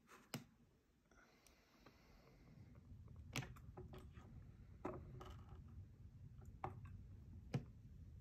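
Faint, scattered clicks and taps of a cat's claws on a plastic wall-mounted fan remote and its holder, about half a dozen in all, with a faint low hum underneath.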